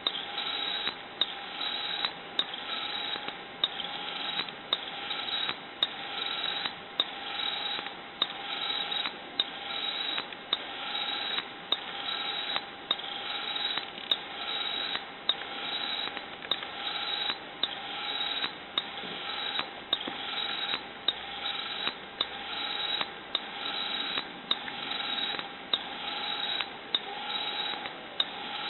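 Homemade hose-reel irrigation machine's winding mechanism running as the drum slowly winds in the hose: a steady whirr with a sharp click repeating about once a second.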